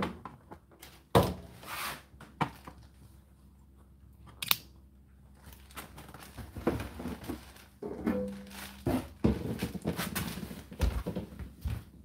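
Irregular clicks, thunks and rustles as an Indesit condenser tumble dryer is handled, with a short low hum about eight seconds in.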